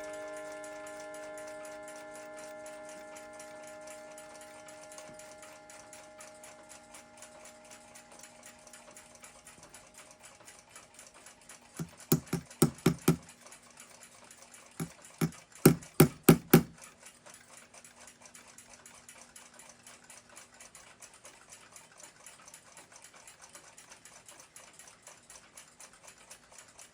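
Small hammer striking riveting punches to set a brass plug in a clock's pivot bushing: a quick run of about five sharp taps, then four more a few seconds later. Faint, fast ticking underneath, and background music fading out over the first several seconds.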